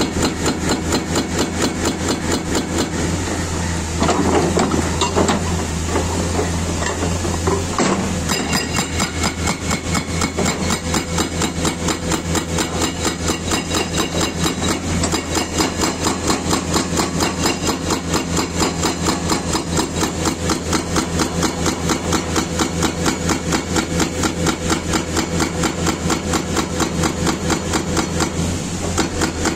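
Pultvizor SV240 Prime hydraulic breaker on a Komatsu PC210 excavator hammering its 140 mm chisel into the ground in fast, even blows, with the excavator's diesel engine running underneath. It is louder and rougher for a few seconds starting about four seconds in.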